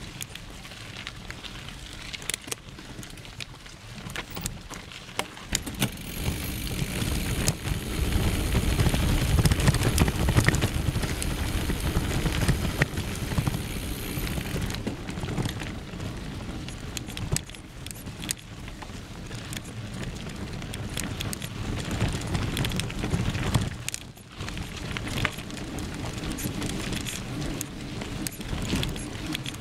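Mountain bike riding a dirt and gravel forest trail: knobby tyres rumbling and crunching over the ground, with the chain and frame rattling and clicking. The rumble grows louder from about six seconds in and eases off after about fifteen.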